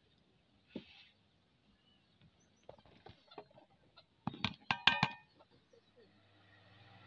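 Boiled noodles tipped from a plastic colander into a steel bowl: a burst of knocks and clatter, with a few short pitched sounds, about four to five seconds in, after a few faint taps.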